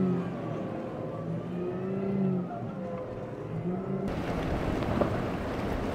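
Twin outboard engines on a center-console boat running at speed, the engine note wavering up and down as the boat rides over the chop. About four seconds in, the sound switches abruptly to wind buffeting the microphone and rushing water.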